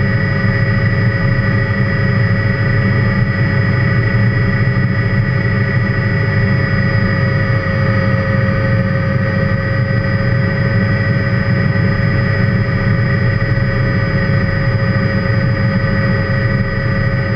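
Helicopter engine and rotor noise heard inside the cockpit in flight: a steady, loud low drone with several constant high-pitched whines over it.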